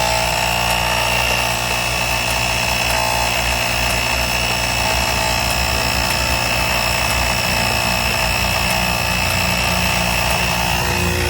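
A small 12-volt air compressor built into a portable jump starter runs steadily as it inflates a flat car tire, with a constant high whine over a fast rattle. It inflates slowly.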